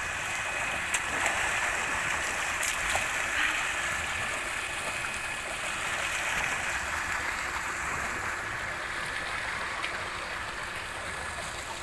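Water gushing steadily from a tubewell's outlet pipe into a concrete tank, growing slowly fainter toward the end.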